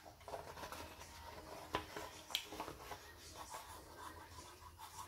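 Hobby covering iron sliding over heat-shrink plastic film on a model airplane cowling: faint rubbing and scratching with a few light clicks, the sharpest about two seconds in.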